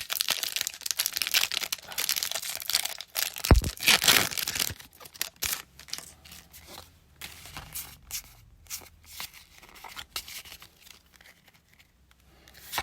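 Foil Pokémon booster pack wrapper being torn open and crinkled, with a single thump about three and a half seconds in. After about five seconds it gives way to quieter, scattered rustles and small clicks as cards are handled.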